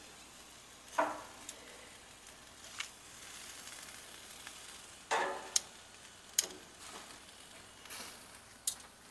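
Chicken wings sizzling on a grill as a steady hiss, with a series of sharp clicks and clanks as the wings are turned over on the grate.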